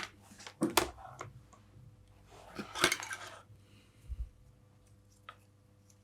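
Clicks and clatter of small hard objects being handled on a workbench, with a sharp click at the start, a burst of rattling around a loud click midway, and a dull thump about four seconds in. A faint steady hum runs underneath.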